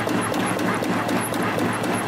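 CNC compression spring coiling machine running, feeding and coiling 1.4 mm wire into variable-diameter compression springs. A steady hum with a regular tick about four times a second, matching its rate of 250 springs a minute.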